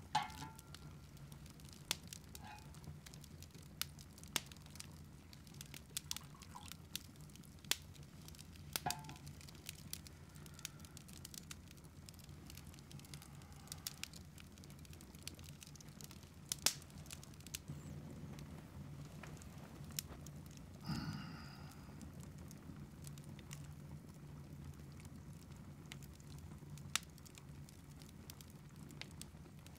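Wood fire crackling in a fireplace: scattered sharp pops and snaps over a low steady hum, with a brief squeak about two-thirds of the way through.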